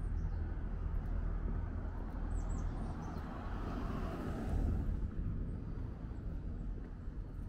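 Outdoor street ambience with a steady low rumble, and a vehicle passing that swells to a peak about four seconds in and then fades. A few short high chirps, likely a bird, sound near the middle.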